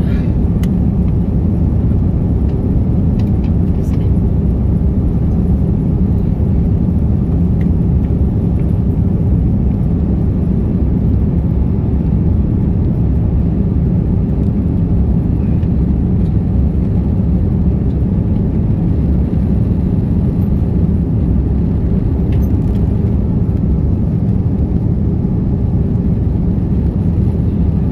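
Steady low rumble inside an airliner's cabin during the climb: jet engines and rushing airflow heard through the fuselage, even and unbroken throughout.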